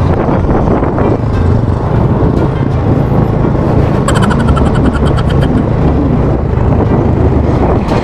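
Motorcycle riding noise: wind rushing over the microphone over a running motorcycle engine. About four seconds in, a brief high-pitched sound with a rapid pulse cuts through for a second or so.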